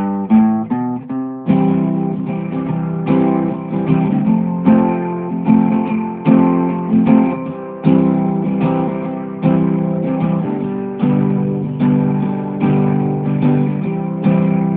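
Acoustic guitar music: a quick run of plucked notes, then chords strummed in a steady rhythm.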